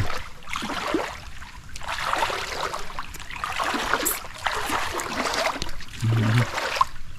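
Running water of a forest stream, with uneven splashing and swishing that comes and goes every second or so.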